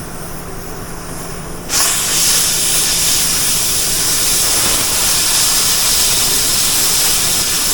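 A cutting torch starts about two seconds in and runs with a loud, steady hiss as it cuts the center out of a steel wheel rim. Under it, a shop fan hums steadily.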